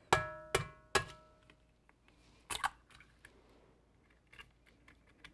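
An egg knocked three times against the rim of a stainless steel stand-mixer bowl, each knock leaving a short metallic ring. About two and a half seconds in, softer cracking as the shell is pulled open over the bowl.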